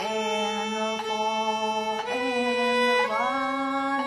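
Viola played with the bow: slow, sustained single notes about a second each, the first two at the same pitch, then two stepping higher, the last with a short slide up to its pitch.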